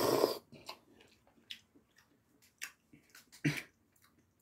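A person slurping cup udon noodles, loudest right at the start, then chewing with soft wet mouth clicks and smacks and one louder smack about three and a half seconds in.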